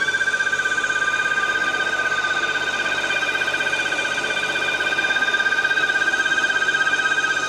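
Steady high-pitched whistle with a fast flutter from a 2011 BMW F07 5 GT's 3.0-litre N55 turbo straight-six idling just after its fast-idle phase. The mechanic takes it for a torn diaphragm in the pressure-regulating valve built into the rocker cover, which lets intake vacuum pull hard on the inside of the engine.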